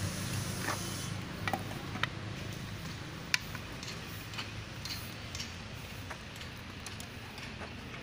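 Scattered light clicks and taps, with one sharper knock about three seconds in, from the metal bowl lid and cover of a centrifuge bitumen extractor being fitted and fastened by hand, over a low steady hum.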